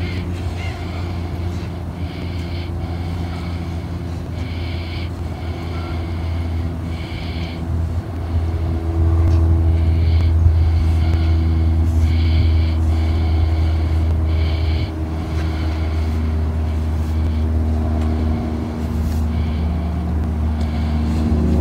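Push broom scraping absorbent powder across asphalt in repeated short scratchy strokes, about one a second, over a steady low rumble of a running vehicle engine that grows louder about eight seconds in.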